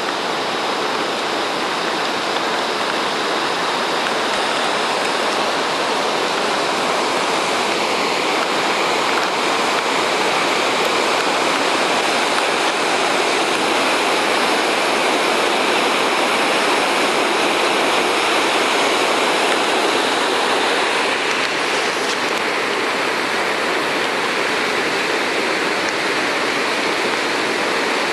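Steady rushing of river water over rapids, an even, unbroken noise.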